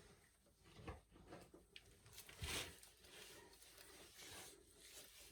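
Near silence with a few faint handling clicks and rustles.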